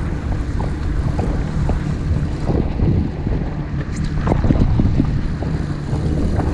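Jet ski engine running at idle with a steady low hum, wind buffeting the microphone, and scattered short knocks and splashes of water against the hull.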